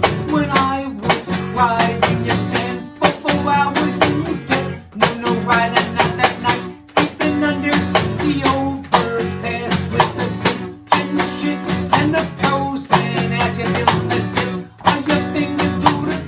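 Guitar music: a plucked and strummed guitar passage, without words, keeping a steady rhythm.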